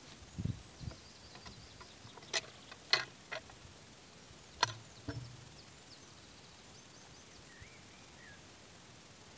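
Two dull thuds of an axe about half a second in, then several sharp cracks and snaps, the loudest about 3 s in. Birds call faintly, with one short up-and-down chirp near the end.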